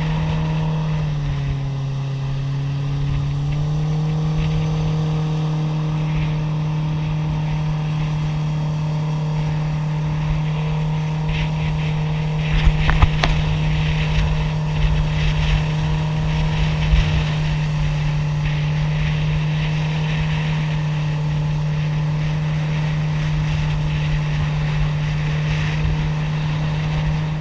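Jet-drive boat's outboard motor running steadily at cruising speed. Its revs dip about a second in and pick back up a couple of seconds later.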